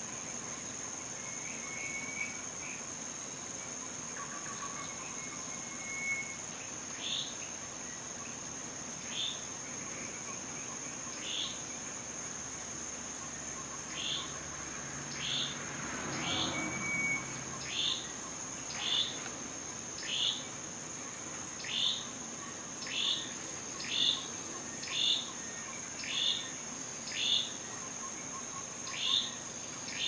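A bird repeating a short, falling, high chirp, spaced about a second apart and coming closer together in the second half, over a steady high-pitched drone. A soft rustle comes around the middle.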